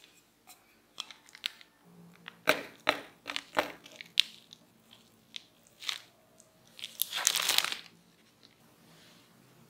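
Plastic cling film crinkling and crackling in a series of sharp crackles as a boiled potato under it is pressed flat with the bottom of a glass. Near the end comes a longer, louder rustling burst as the film is pulled off.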